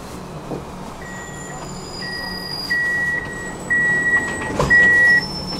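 Tram door-closing warning: a high electronic beep repeating in half-second pulses, starting about a second in and growing louder, over the low hum of the tram. A thump sounds near the end.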